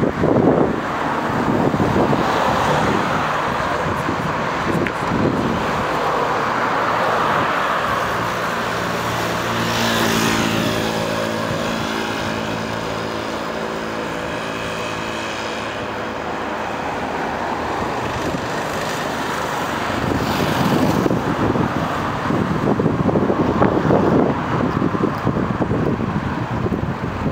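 Wind noise on the microphone of a camera carried on a moving bicycle, mixed with street traffic. Through the middle stretch the wind eases and a steady hum with several held tones, a motor vehicle's engine, comes through.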